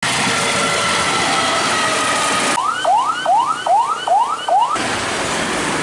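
Ambulance siren in a fast wail: about five quick rising sweeps, each dropping sharply back, that cut off suddenly. Before it comes a steady rushing noise with faint held tones from a train passing in rain.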